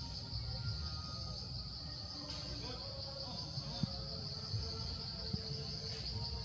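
Steady high-pitched insect chorus over a low background rumble.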